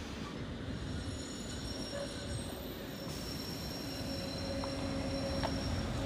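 Škoda electric trolleybus pulling away and passing close by, its electric drive giving a steady whine over a low rumble of tyres, growing louder as it nears.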